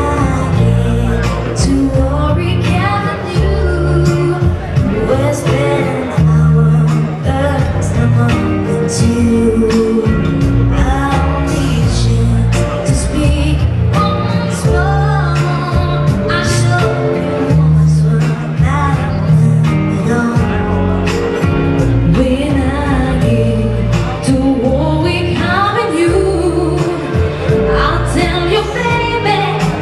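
Pop song performed with sung vocals over a band accompaniment, with a steady beat and bass.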